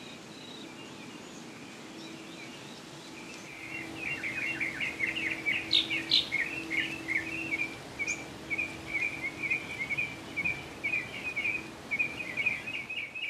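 Songbirds singing in the bushes: a quick run of high chirps and trills starts about three and a half seconds in and goes on, over a faint steady low hum.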